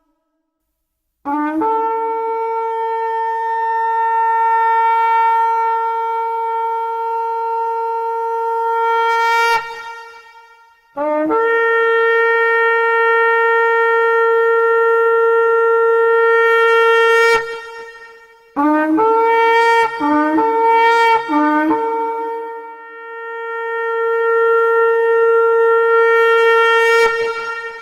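A horn blown in loud blasts on one steady note, each starting with a quick upward scoop. There are three long held blasts of several seconds each, and between the second and third a run of about four short broken notes.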